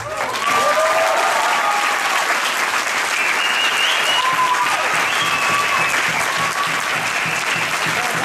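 Audience applauding steadily after tango music ends, with a few voices calling out over the clapping.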